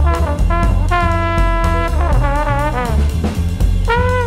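Instrumental music led by trumpets, playing held notes and then a wavering, sliding phrase, over a drum kit and bass.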